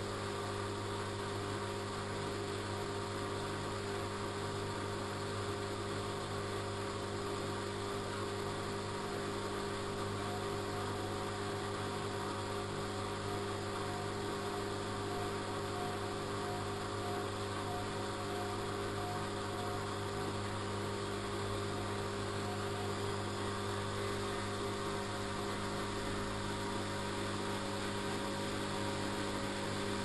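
Front-loading washing machine on a 60 °C cottons wash, its drum motor running with a steady hum as the wet laundry tumbles. Near the end the drum picks up speed and the load starts to cling to the drum wall.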